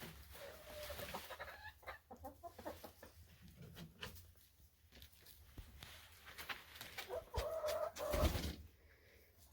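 Domestic hens clucking softly among scattered small clicks and scratches, with a louder, longer cluck near the end.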